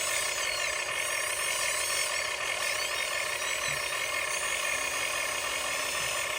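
Huina 1599 RC excavator's electric motors whining steadily as it digs, with higher whines sliding up and down in pitch as the controls and load change.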